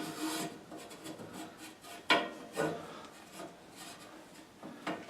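Rubbing and scraping as an inspection camera's cable is worked about inside a furnace's heat exchanger, with a few sharp knocks: two about two seconds in and one near the end.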